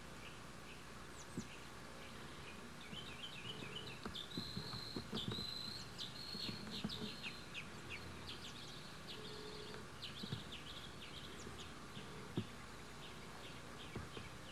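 Small birds chirping in the background: rapid short chirps and falling high notes, with a thin high note held briefly about four seconds in, over a steady hiss. A few low soft knocks, the sharpest near the end.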